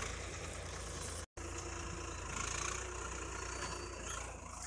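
Diesel engines of a Mahindra 575 DI and a Swaraj 855 tractor running steadily together, hitched in tandem to pull a mud-stuck loaded trolley. The sound breaks off for a split second about a second in.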